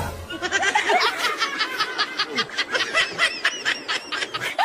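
Laughter sound effect following a punchline: a rapid run of high-pitched snickering, many short laughs in quick succession.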